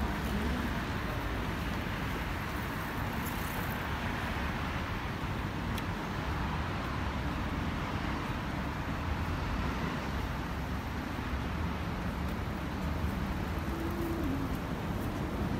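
Steady street traffic noise, an even low rumble of cars on the road alongside.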